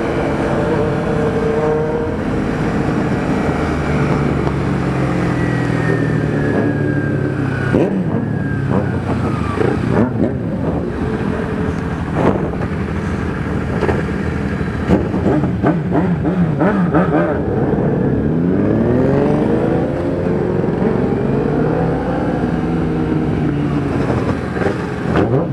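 Several motorcycle engines running in traffic, heard from inside a rider's helmet, with one easing off around the quarter mark and one revving up hard in a rising sweep a little after the middle.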